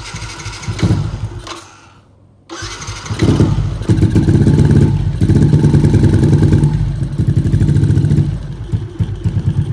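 Single-cylinder four-stroke engine of a big-bore Yamaha Exciter 135 motorcycle with an aftermarket exhaust. It starts, dies after about two seconds, and is started again half a second later. It is then held at raised revs for about five seconds before dropping back to a lumpy, pulsing idle.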